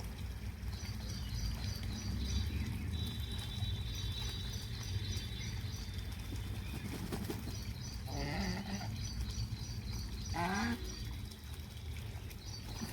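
Ducks calling twice, about eight and ten seconds in, over a steady high, rapidly repeating chirping and a low steady rumble.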